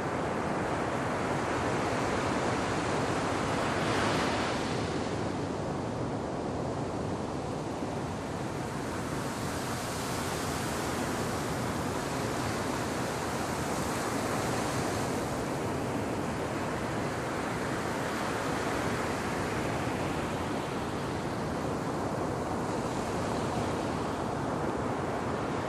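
Black Sea surf: waves breaking and washing up the shore in a steady rush, with a louder break about four seconds in and hissing washes of water around ten, fourteen and twenty-three seconds in.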